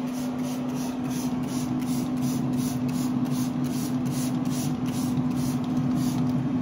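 Plastic trigger spray bottle squirted rapidly and steadily, about three sprays a second, with a steady low hum underneath.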